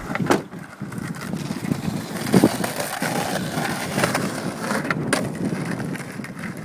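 Skateboard wheels rolling over pavement, a steady gritty rumble broken by a few sharp clacks.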